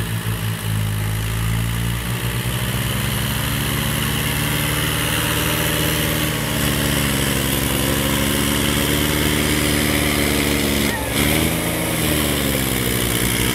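Farm tractor's diesel engine working hard under load, hauling a trailer of logs uphill. The engine note sags about eleven seconds in, then picks back up.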